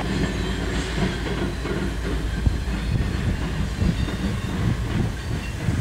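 Passing CSX freight train: two diesel locomotives running under load at the head of a double-stack intermodal train. It is a steady low heavy sound with irregular wheel clacks over the track.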